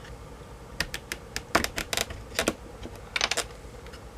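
Irregular sharp clicks and taps of hard plastic and wood knocking together as a notebook battery pack's plastic casing is worked open with wooden wedges; about ten knocks, the loudest about a second and a half in, with quick clusters later on.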